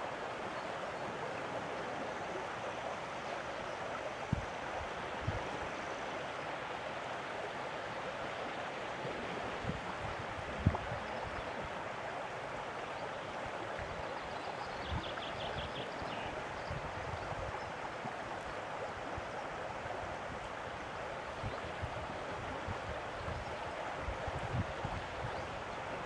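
Steady rush of moving water, a stream or small waves running over the rocky shore of a sea inlet. A few low thumps break through, the loudest about ten seconds in, and a short rapid high trill sounds about halfway through.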